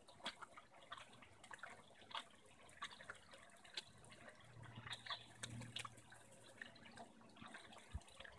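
Faint trickling and dripping water in a garden koi pond, with many small irregular clicks and ticks.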